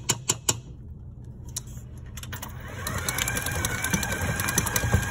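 A spatula knocks and scrapes against a steel stand-mixer bowl a few times, then about two and a half seconds in the stand mixer's motor starts and runs with a steady whine as its flat paddle beats softened butter.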